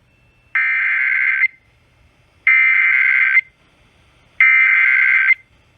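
Emergency Alert System SAME header: three bursts of warbling digital data tones, each about a second long with about a second's gap between them. This is the coded header that opens an EAS broadcast, here a National Weather Service severe thunderstorm warning.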